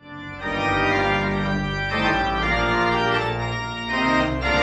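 Pipe organ playing full, sustained chords over a deep bass note. The chords change every second or two.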